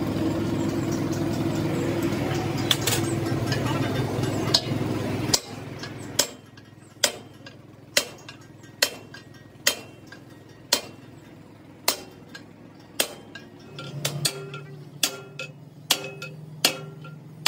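Stick-welding crackle over a steady machine hum. About five seconds in it cuts off and gives way to sharp metal-on-metal hammer strikes on the steel truck axle housing, about one a second, each ringing briefly.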